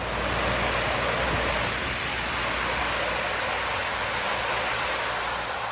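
Steady rush of splashing, falling water.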